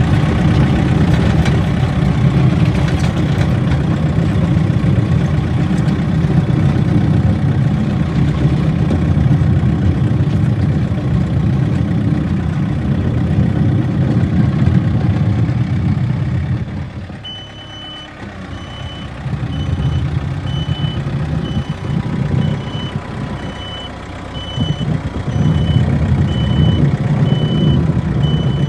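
Backhoe's diesel engine running hard under load, easing off about two-thirds of the way in. Its reversing alarm then starts beeping steadily, about once a second, as the engine picks up again.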